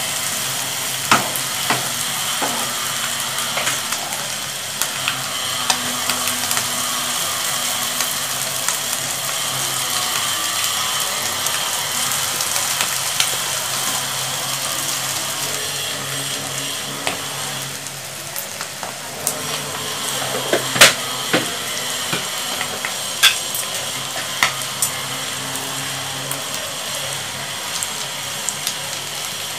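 Vegetables and noodles sizzling in a nonstick pan as they are stir-fried, with the spatula clicking and scraping against the pan. The sizzle eases a little past the middle, and the sharpest knock of the spatula comes a few seconds later.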